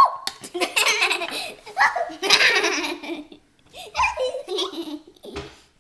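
Children laughing and giggling in loud bursts through the first three seconds, then a shorter burst of giggling about four seconds in.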